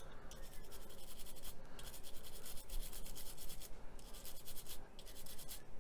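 Rapid scratching and scrubbing strokes on a painted plastic model part, with a few brief pauses. A wet brush or pointed tool is working the gloss paint so the chipping fluid beneath lets it flake away.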